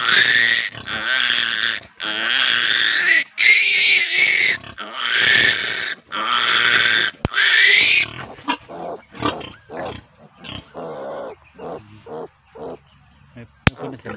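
Day-old piglet squealing loudly in long, rising squeals as its needle teeth are clipped with a cutter, then settling into short, softer grunts for the last six seconds. Two sharp clicks, one midway and one near the end.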